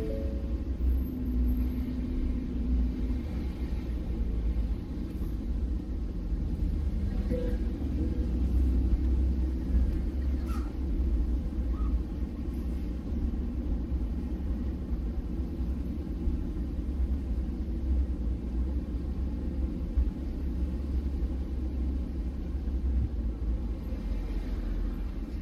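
Steady low rumble of a pickup truck driving along a street, heard from inside the cab.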